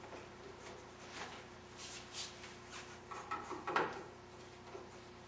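Scattered light knocks, scrapes and rubbing of wooden furniture parts being handled and locked together during assembly, the loudest a cluster of knocks a little before four seconds in.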